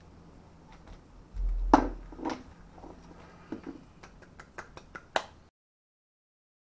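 Handling noise from hands working over a radio-controlled car: a dull thump about a second and a half in, then scattered knocks and light clicks. The sound cuts off abruptly about five and a half seconds in.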